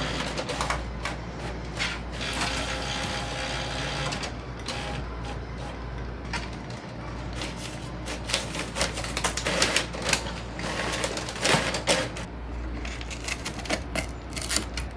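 HP inkjet all-in-one printer running as it prints and feeds pages, with paper rustling and tearing as a cat paws and pulls at the sheets coming out. The clicks and rustles come thicker in the second half.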